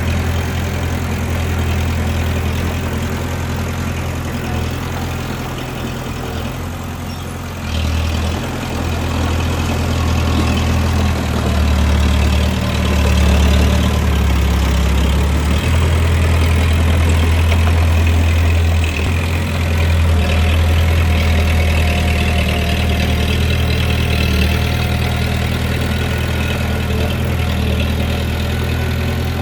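Bulldozer diesel engine running with a steady low hum, getting louder and working harder from about eight seconds in.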